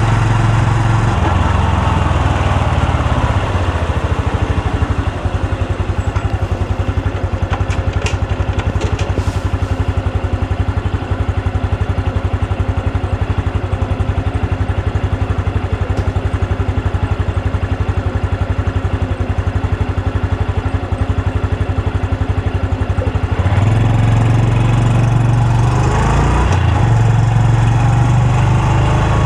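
Honda Super Cub C125's single-cylinder four-stroke engine and exhaust, heard from the rider's seat: the revs drop to an even idle about three seconds in, it idles with a steady pulse, then the revs rise again about 23 seconds in as the bike pulls away, with a brief dip near the end.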